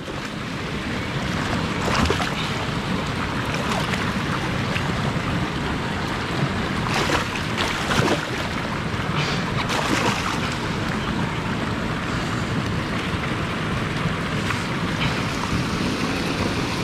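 Steady rush of flowing river water, with the splashes of a hooked musky thrashing at the surface, the sharpest about 2, 7, 8 and 10 seconds in.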